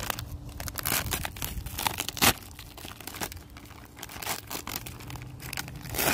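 Plastic Squishmallows mystery bag crinkling and tearing as it is pulled open by hand, in irregular crackles with one louder one a little over two seconds in.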